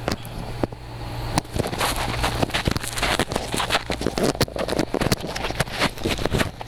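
Close handling noise of food or wrapping being worked open: irregular rustling, crinkling and clicking right at the microphone, over a steady low hum.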